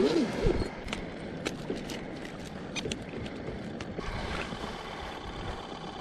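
Water sloshing against a small plastic fishing kayak with wind on the microphone and a few light clicks. From about four seconds in, a faint steady engine hum from a motorboat joins.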